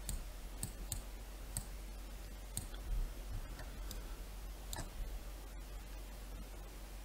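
Computer mouse button clicks: about half a dozen short, sharp clicks, most in the first three seconds and a couple more just before five seconds in, over a faint steady low hum.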